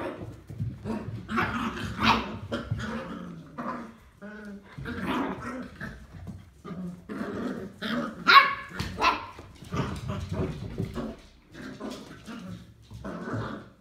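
Beagle puppies about seven weeks old yapping and growling at each other in play, a string of short barks with a brief higher cry about four seconds in and the loudest bark about eight seconds in.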